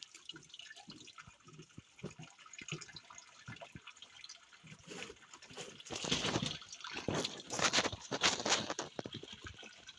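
Water trickling and dripping in a garden waterfall, with louder splashing from about six to nine seconds in.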